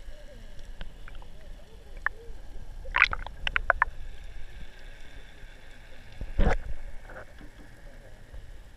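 Underwater sound heard through a GoPro's waterproof housing: a muffled low rumble of water, with a quick cluster of sharp clicks about three seconds in and one louder knock a little past six seconds.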